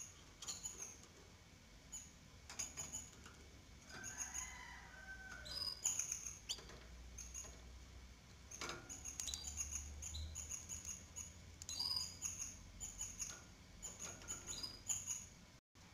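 Three-day-old canary nestlings giving faint, high, short begging peeps, repeated irregularly, with a few longer sliding calls about four seconds in.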